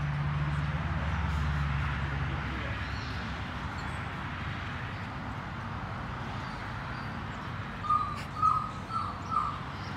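A bird gives four short chirping calls about half a second apart near the end, over steady outdoor background noise, with a low hum in the first two seconds or so.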